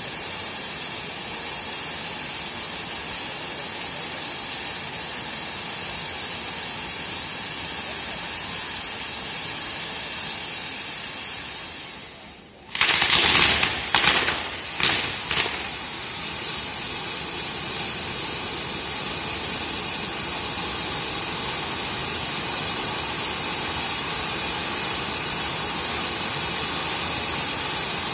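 Ground fireworks fountains spraying sparks with a steady hiss. About halfway through the hiss dies away, a quick run of loud bangs follows, and another fountain then hisses steadily.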